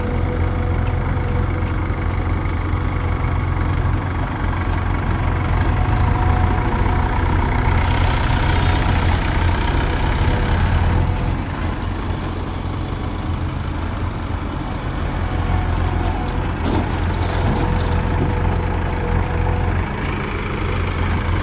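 Heavy diesel machinery running with a deep, steady engine hum. From about eight to eleven seconds in it gets louder, with an added hiss.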